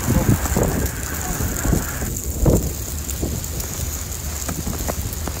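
Winter storm ambience: wind rumbling on the phone microphone over a steady hiss of falling precipitation, with a few short knocks or thuds.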